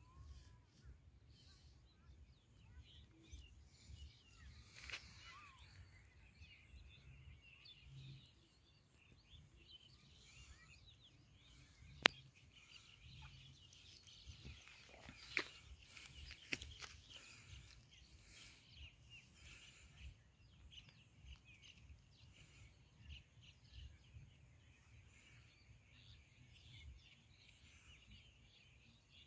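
Faint outdoor ambience with scattered distant bird calls and one sharp click about twelve seconds in.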